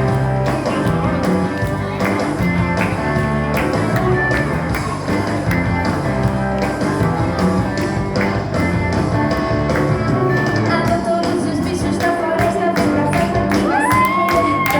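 Upbeat recorded music with a steady, quick beat; near the end, high voices come in over it.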